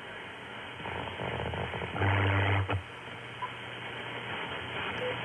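Static and band noise from an Icom IC-7610 shortwave receiver's speaker as its tuning knob is swept across the band, with a louder low humming signal passing through for under a second about two seconds in.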